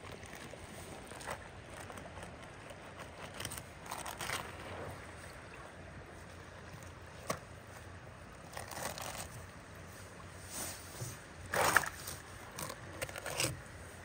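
Fillet knife slicing and scraping through raw coho salmon flesh, with wet handling of the fillets on a mat, in short irregular strokes. The loudest stroke comes a little before the end.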